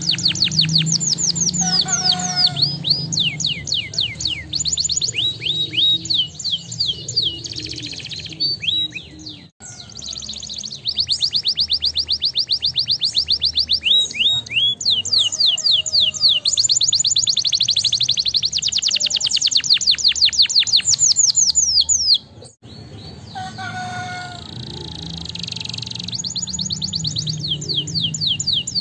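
Domestic canary singing: long, fast trills of rapidly repeated down-slurred notes, the rolls changing speed from phrase to phrase. The song breaks off abruptly twice, about a third of the way in and again about three quarters in.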